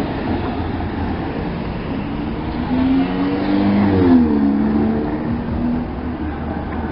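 A motor vehicle passing on the street over steady background noise: its engine hum grows louder to a peak about four seconds in, then drops in pitch as it goes by.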